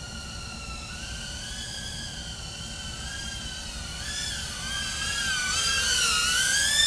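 Tank95 2-inch FPV drone's motors and propellers whining in flight, the pitch wavering up and down with throttle. The whine grows louder and swings more over the last few seconds.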